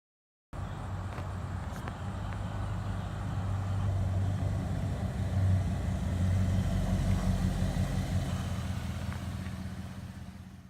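Chevrolet Trailblazer SS's V8 engine running steadily, with a deep even hum. It starts suddenly about half a second in, swells slightly in the middle and fades out at the end.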